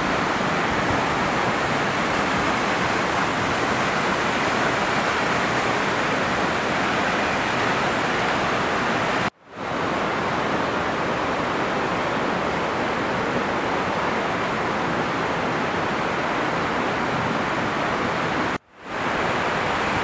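Steady rush of falling and churning water from the Düden Waterfall and its river rapids. It cuts out abruptly twice, about nine seconds in and near the end, each time coming straight back.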